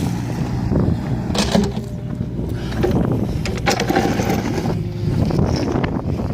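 Diesel engine of heavy construction plant running steadily, with several metallic clanks and knocks over it.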